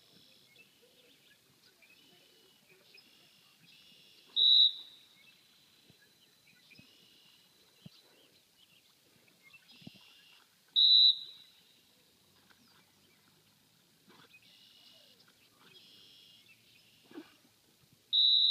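Three short, sharp blasts of a retriever handler's dog whistle, one about four seconds in, one near eleven seconds and one near the end, each a single stop signal to the dog working in the water. Fainter chirps come between the blasts.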